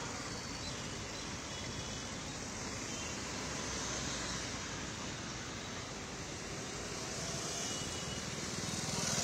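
Steady road traffic noise from cars and a slow water-spraying truck passing on a city street, swelling near the end as a motorbike passes close.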